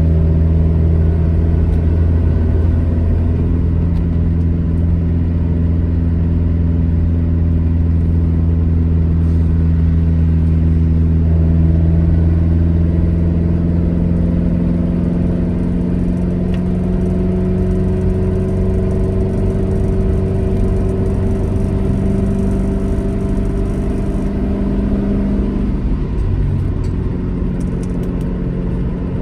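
Alfa Romeo GT1300 Junior's twin-cam four-cylinder, heard from inside the car while driving. The engine holds a steady note, changes about a third of the way in, pulls slowly up in pitch, then drops back near the end. Over it is a bright, penetrating clatter from the newly fitted gear lever, which is not yet mounted correctly.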